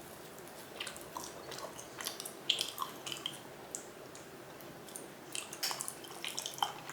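Person chewing raw chicken close to the microphone: irregular soft, wet clicks and squishes.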